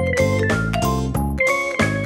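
Background instrumental music: an upbeat tune whose notes and chords change at an even pace of about four a second.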